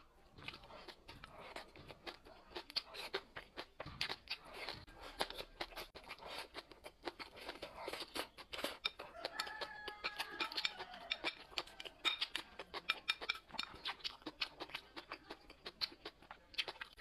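Close-up eating sounds: rapid, irregular crunching and smacking clicks while chewing. A short pitched, wavering sound comes in about ten seconds in.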